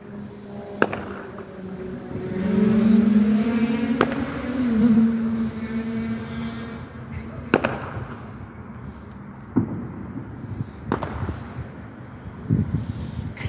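Fireworks or firecrackers going off: about six sharp bangs a second or few apart. A low drone rises in the middle and fades away again.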